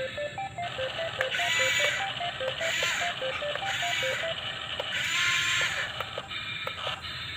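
Background music: a simple tune of short, evenly spaced notes hopping between a few pitches, with several hissing bursts about half a second to a second long.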